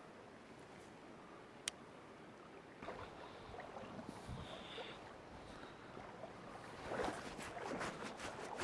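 Shallow creek water running, with a sharp click a little under two seconds in. Splashing steps of someone wading through the creek grow louder over the last couple of seconds.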